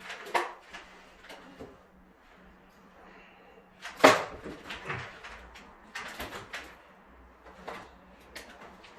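Irregular knocks and clatters of objects being handled, the loudest a sharp knock about four seconds in, over a faint steady hum.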